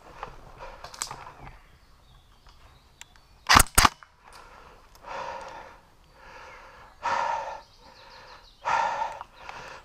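Two sharp airsoft gun cracks about a quarter second apart, a little over three seconds in. Later come three shorter noisy sounds of about half a second each.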